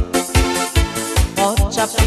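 Instrumental trot dance music: a steady kick drum about two and a half beats a second under a gliding melody line and chords.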